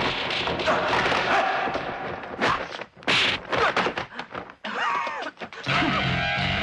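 Kung fu film fight sound effects: a run of punch and strike impacts with swishes, sharp and separated by short gaps, and a short vocal sound around five seconds in. Music starts near the end.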